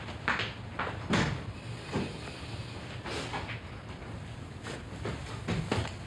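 Footsteps and a door: a string of separate knocks and thuds, the heaviest about a second in, with a quicker run of steps near the end.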